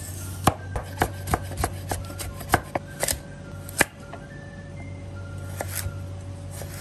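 Chef's knife cutting carrot and burdock root into thin strips on a wooden cutting board: irregular sharp knocks of the blade on the board, several a second at first, sparser in the second half. Quiet background music plays underneath.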